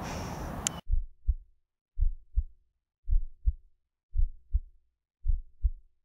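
Heartbeat sound effect: slow paired low thumps, lub-dub, about one pair a second, five times over otherwise silent audio. Faint room noise cuts out just before the first beat.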